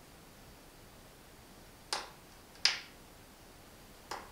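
Plastic push button on a portable tyre-inflator compressor's control panel clicking as it is pressed to raise the set pressure: two sharp clicks about two-thirds of a second apart near the middle, and a fainter one near the end.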